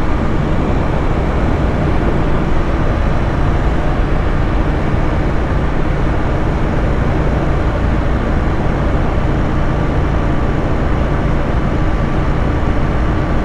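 Royal Enfield Interceptor 650's parallel-twin engine running steadily at cruising speed, under a constant rush of wind and road noise.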